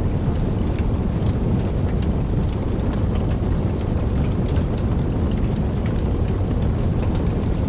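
Wood fire burning, with a steady low rumble and frequent small, irregular crackles and pops.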